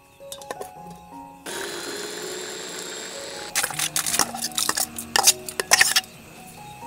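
Small electric food chopper running for about two seconds, mincing garlic and red chillies, then cutting off. A spoon then knocks and scrapes the chopped mix out into a stainless steel bowl in a run of sharp metallic clinks, the loudest sounds here. Background music plays throughout.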